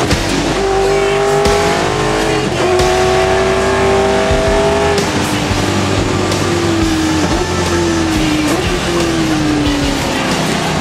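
A V8 Supercar's V8 engine heard from inside the cabin, pulling hard with the revs climbing. It shifts up about a quarter of the way in and climbs again. From about halfway the revs fall away with short breaks as the car slows for a corner.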